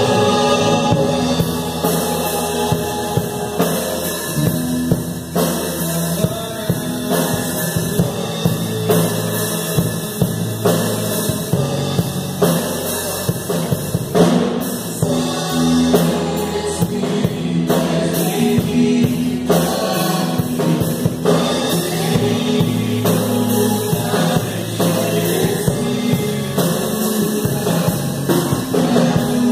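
A woman singing a worship song into a microphone, amplified through a PA, over instrumental accompaniment with a steady drum beat.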